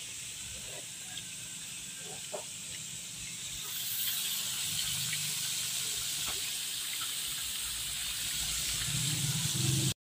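Battered chicken pieces deep-frying in hot oil: a steady sizzle with faint pops, a little louder from about four seconds in, cutting off suddenly at the very end.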